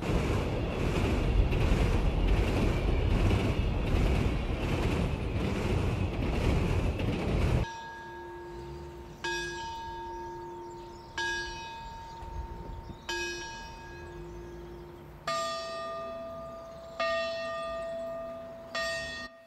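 A train passing close by, a loud rushing clatter with an even beat of wheels over rail joints, cut off abruptly about eight seconds in. Then bells toll slowly, a stroke about every two seconds, each ringing on: first a lower bell, then from about fifteen seconds a higher one.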